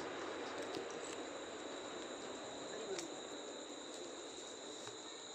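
Crickets trilling steadily: a continuous high-pitched ring over a faint hiss.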